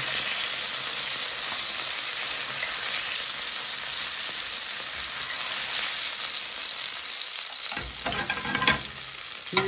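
Chicken skewers and small onions sizzling in oil in a hot ridged grill pan: a steady frying hiss. A few short knocks come near the end.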